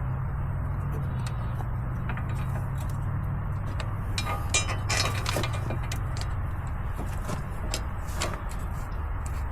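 Clicks and knocks of a hand wrench working the front wheel hub's bolts, clustered about four to five and a half seconds in, over a steady low hum.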